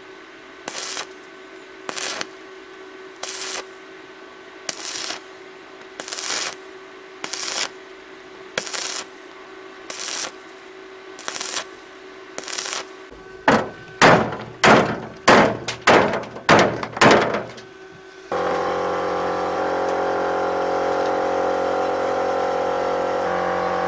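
Arc welding thin sheet steel on a tractor body panel with a stick electrode: the arc crackles in short stitches about a second apart over a steady welder hum, then in louder, quicker bursts. At about 18 seconds it gives way abruptly to an engine running steadily.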